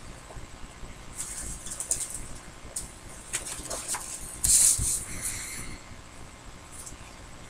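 Paper rustling and handling noises as a sheet is moved and put aside, in a few short bursts with small ticks; the loudest rustle comes about four and a half seconds in.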